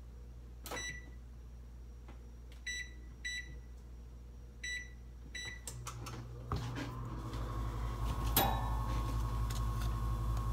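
Oven control panel beeping, about five short keypress beeps, as it is set to 400 degrees. The oven then starts running with a steady hum and a faint whine that grows louder, and one click partway through.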